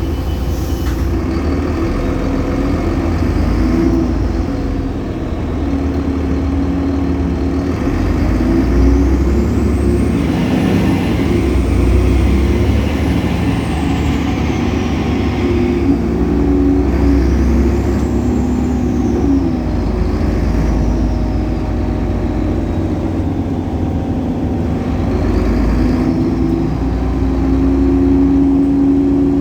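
DAF Paccar PR265 diesel engine of a Solaris Urbino 18 articulated bus with a ZF Ecolife automatic gearbox, pulling away and easing off several times with rising and falling whines. A steady whine rides over the engine, consistent with the loud belt noise this bus is known for.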